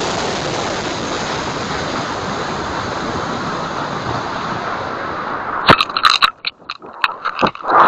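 High-power rocket in flight, heard from its own onboard camera: a steady rushing of motor and airflow that fades slowly. About six seconds in it stops abruptly with a sharp crack, followed by a run of irregular knocks and clatters as the recovery harness deploys.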